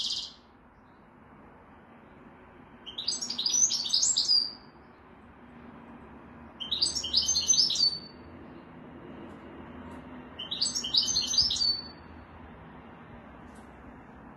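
Caged European goldfinch singing: three short bursts of high, fast twittering song a few seconds apart, each ending in a brief drawn-out note, after a short call right at the start.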